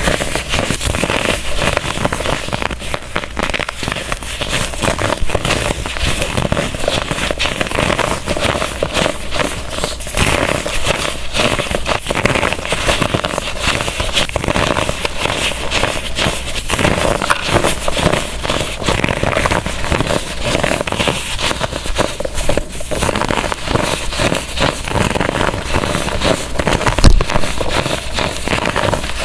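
Compressed baking soda blocks being crushed and crumbled, a dense run of crunching and crackling, with one louder crunch near the end.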